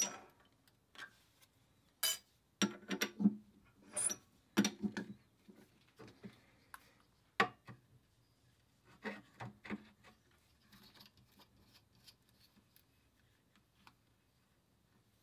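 Hand-handling noises of metal tools at a stopped lathe: a series of irregular clicks and clunks as a steel rule, the chuck and a dial indicator are handled. They are busiest in the first five seconds, then thin out to a few faint ticks.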